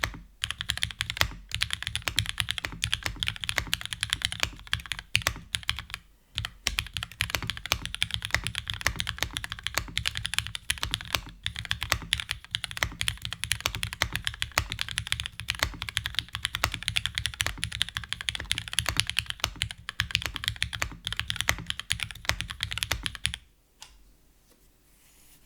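Fast, continuous typing on a TGR Jane v2 mechanical keyboard: retooled Cherry MX Black linear switches with lubed springs and stems, on a flex-cut 5052 aluminum plate with GMK keycaps. The typing pauses briefly about six seconds in and stops near the end.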